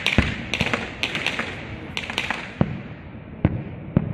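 Aerial fireworks display: shells bursting in quick succession over a continuous crackle. The bangs thin out after about two and a half seconds to a couple of single reports.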